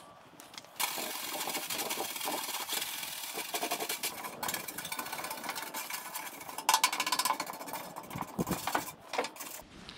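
Degreaser being sprayed onto a metal grill lid: a steady spraying hiss that starts about a second in, then a few shorter spray bursts near the end.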